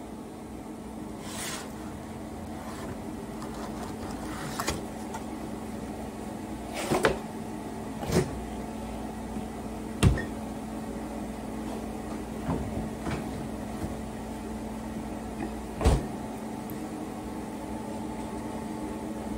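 Kitchen handling noises: scattered knocks and clicks as a refrigerator door is opened and a plastic cake container is handled, the sharpest knock about halfway through and another thump near the end, over a steady low hum.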